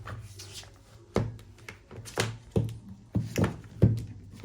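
Irregular sharp knocks and taps, about six in four seconds, over a steady low hum.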